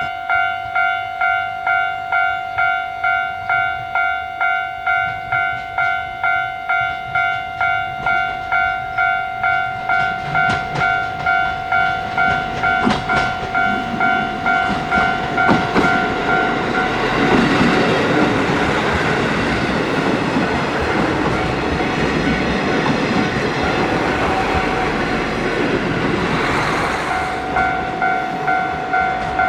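Railway level-crossing warning bell ringing in a steady rhythm, about one and a half strikes a second. The Kiha 40/48 diesel railcar train approaches with rail-joint clicks and passes loudly for about ten seconds, drowning the bell, which is heard again near the end.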